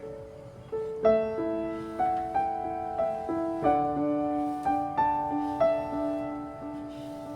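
Background music: soft piano playing slow melody notes, each struck and left to ring.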